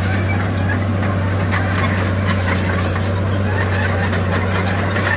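Heavy diesel engine of earthmoving machinery running steadily at a constant low pitch, with faint scattered clicks and rattles over it.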